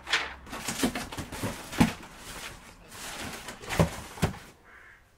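Cardboard boxes and packing being handled: rustling and scraping of cardboard with several dull knocks, the loudest about two seconds in and again near four seconds.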